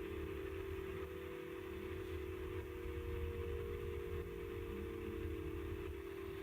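A steady synthesized drone, offered as the sound of the Big Bang: a humming middle tone that slowly sinks in pitch, over a low rumble and a hiss.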